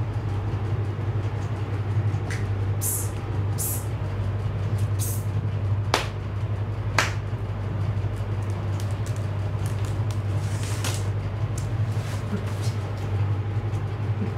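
Steady low electrical hum, with a few brief rustles and two sharp clicks about a second apart midway.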